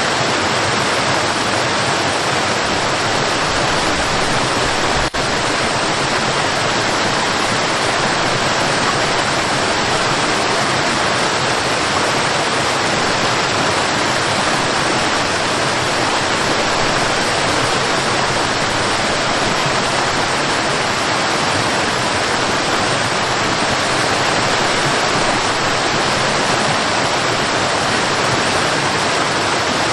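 Waterfall: water falling and splashing in a steady, dense rush. A single faint click with a brief dip in level about five seconds in.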